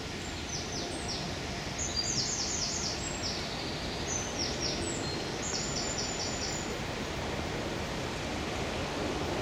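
A small songbird singing several short phrases of rapid, high repeated notes, over a steady outdoor background hiss.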